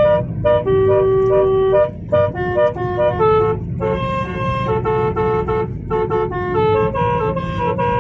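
Telolet horn on a Suzuki APV, a multi-trumpet air horn playing a tune: a run of short and held notes at changing pitches. Brief breaks come about two, four and six seconds in, over a low rumble.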